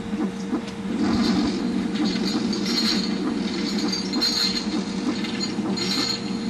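Small gear motors inside a Gemmy animated monster figure running, a continuous whirring rattle with scattered clicks as the head turns.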